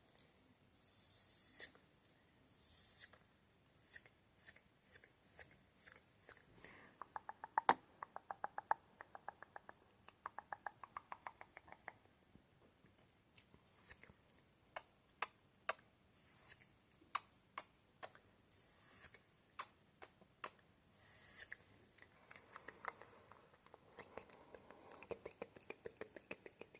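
Close-microphone ASMR mouth sounds: short hissed "sk" sounds and many wet tongue and lip clicks, with fast runs of clicks in the middle and softer clicking near the end.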